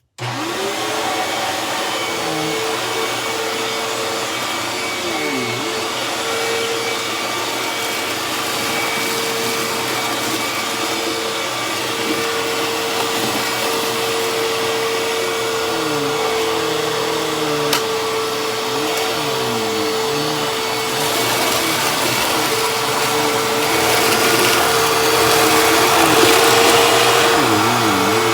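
Hoover Tempo bagless upright vacuum cleaner switched on, its motor spinning up at once to a steady loud whine and running continuously. Its pitch dips briefly now and then, and the sound grows louder and hissier in the last several seconds.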